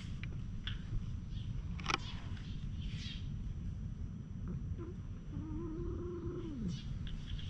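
A cat's low, drawn-out warning yowl, held steady for about a second and a half and then sliding down in pitch: a threat call between two stray cats facing off. A sharp click comes about two seconds in.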